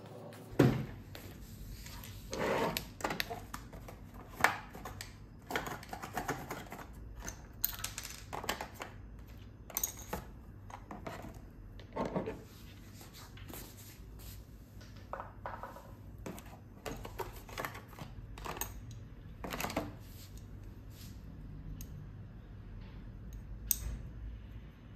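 Small jars in clear plastic bags being handled on a wooden desk: irregular clicks, light knocks and plastic bags rustling as they are unpacked and torn open. A sharp knock about half a second in is the loudest sound, and the handling thins out near the end.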